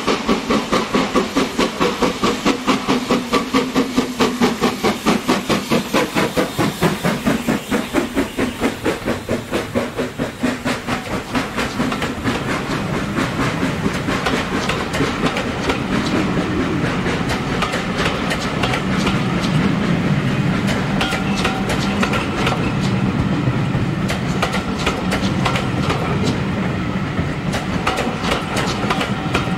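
Steam locomotive No. 75029, a BR Standard Class 4 4-6-0, working a passenger train past at close range. A fast, even beat of exhaust chuffs comes first, and from about twelve seconds in it gives way to the steady rumble and clickety-clack of the coaches' wheels over the rail joints.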